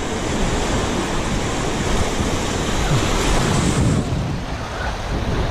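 Surf breaking and washing through the shallows around wading anglers' legs, a steady rush that eases a little near the end, with wind rumbling on the microphone.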